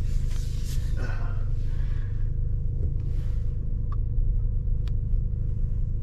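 2023 Toyota Tacoma's 2.7-litre four-cylinder engine running at low speed, heard from inside the cab, with a steady low rumble. Two faint clicks come about four and five seconds in.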